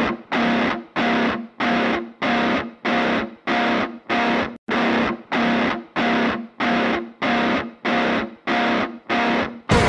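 Intro music: a distorted electric guitar strikes the same chord over and over in short, evenly spaced stabs, about three every two seconds, each cut off before the next.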